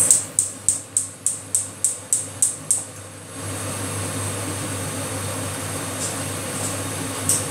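Gas hob igniter clicking about ten times in quick, even succession, roughly three clicks a second. About three seconds in, the clicking stops and a steady rushing noise takes over.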